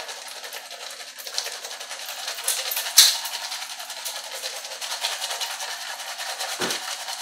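Crispy fried onions rustling and crackling as they are crumbled by hand and scattered over a pasta bake. A sharp click comes about three seconds in and a soft knock near the end.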